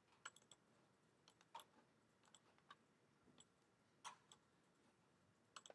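Faint computer mouse clicks, a dozen or so short, irregular clicks over near silence.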